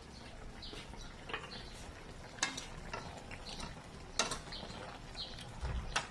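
Metal spatula clinking and scraping against a metal wok while stirring braised chicken feet, with two sharper clinks about two and a half and four seconds in.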